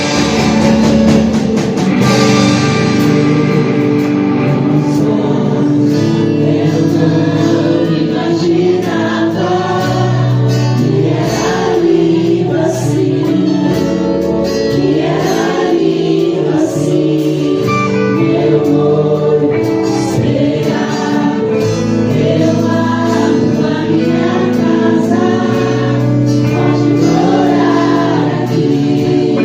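Christian worship music: a group of voices singing together over a live band, continuous and loud.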